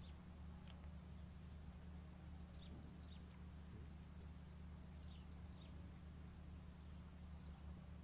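Near silence: faint outdoor ambience with a steady low hum and a few short, high, falling chirps in pairs, about three and five seconds in.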